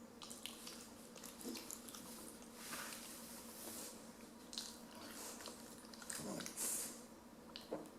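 Sleeping 10-week-old Rottweiler puppy breathing in soft, noisy breaths a few seconds apart, with faint wet clicks and smacks from her mouth.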